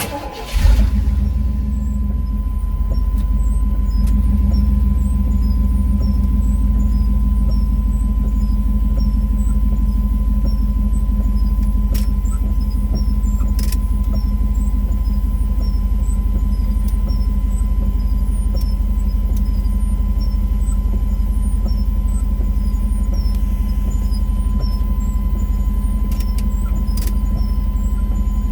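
A 5.7-litre V8 truck engine starting up about a second in, then idling steadily.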